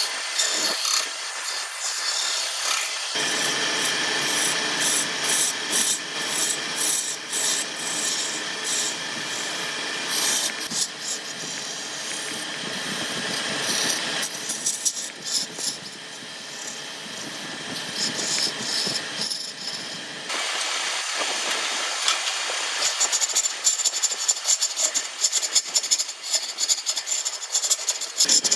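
A tool rubbing and scraping against wood in a steady run of strokes, changing in sound every few seconds as the work goes on.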